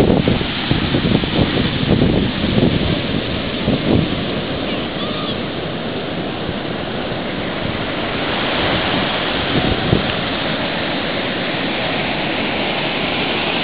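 Ocean surf breaking and washing up the beach, a continuous rush. Wind buffets the microphone with low rumbling gusts through the first few seconds.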